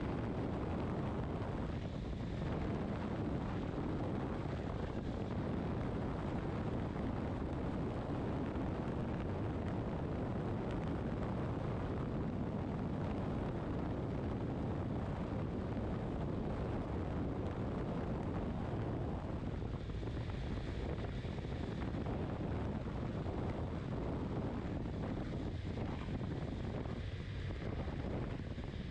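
Steady wind rush on the microphone from a motorcycle cruising at highway speed, mixed with the low drone of its engine and tyres on the road.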